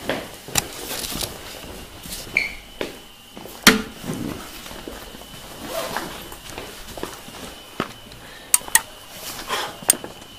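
Footsteps and the rustle and knocks of camping gear being handled and carried, with several sharp clicks near the end.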